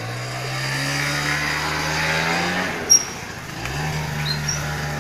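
Small motor scooter engine running as the scooter pulls away, its pitch rising steadily for about two and a half seconds, then dropping off and settling back to a steady run a second later. A short sharp chirp about three seconds in, with a few fainter high chirps after it.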